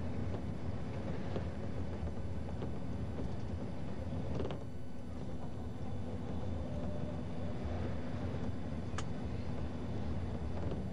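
Steady engine and road rumble of a vehicle driving along, heard from inside it, with a couple of light knocks or rattles about halfway through and again near the end.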